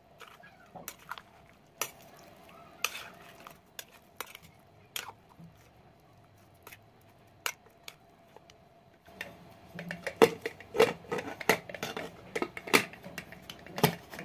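A metal spoon scrapes and clinks against an aluminium pressure cooker as raw chicken, onions and spices are stirred, with sharp clicks scattered through. From about nine seconds in, a denser run of louder metal clatter follows as the cooker's lid goes on.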